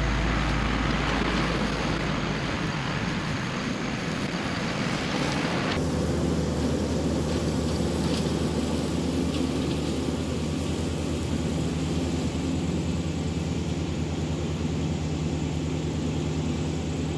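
Kubota L4060 tractor's diesel engine running steadily under load, driving a finish mower through grass. The sound changes abruptly about six seconds in.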